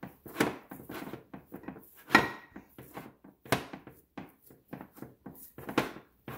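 Glass loaf pans of bread dough being handled on a countertop: several sudden knocks and thunks, the loudest about two seconds in, with softer rubbing and handling noises between.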